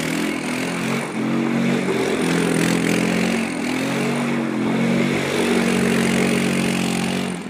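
Polar Fox ATV-2 all-terrain vehicle's engine running under load, its pitch rising and falling again and again as the throttle is worked, then holding steadier near the end.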